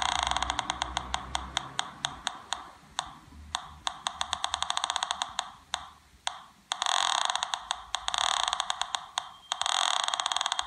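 Home-built PI Polonez pulse-induction metal detector's audio clicking. The clicks come fast enough to merge into a buzz at the start, thin out to a few scattered clicks, then run together into a steady buzz again from about two-thirds of the way in, as a metal target comes near the search coil.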